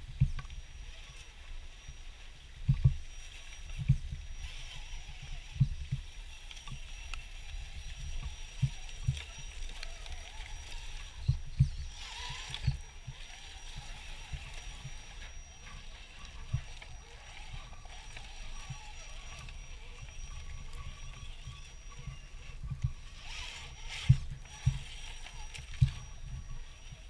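RC4WD Trail Finder 2 scale RC crawler working its way over rocks: irregular low thuds and bumps, over a faint steady hiss and a thin, steady high whine.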